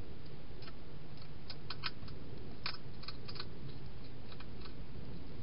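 A wild European hedgehog crunching dry food in a plastic feeding station: irregular small crisp clicks and crunches, coming in quick clusters in the middle, over a steady low hum.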